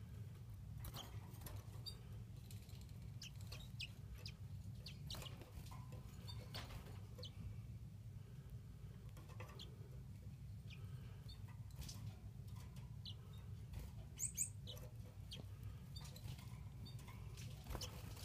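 Newly hatched green singing finch chicks in the nest: faint scattered ticks and a few tiny, very high cheeps, one pair of them about two-thirds of the way through, over a steady low hum.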